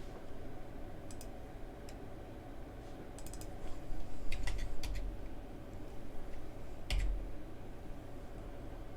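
Computer keyboard and mouse clicks in scattered groups, the strongest a little before two-thirds of the way through, over a steady low hum.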